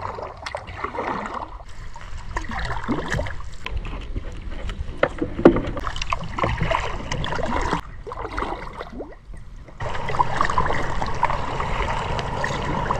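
Kayak paddle strokes swishing and dipping through calm water. From about ten seconds in, a steady hum joins them.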